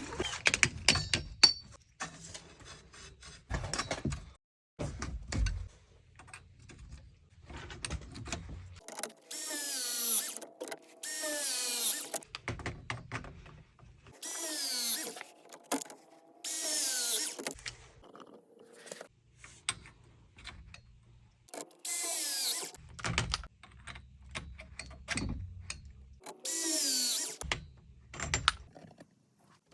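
Tool work on a copper-to-PEX water line: about six short, high-pitched whirring bursts of about a second each, with knocks and handling noises between them.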